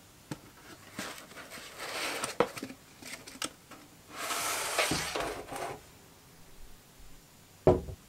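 Rustling and scraping of foam packing and cardboard with scattered clicks as a miniature metal V-twin model engine is pulled by hand out of its foam-lined box, then one short thud near the end as the engine is set down on a hard surface.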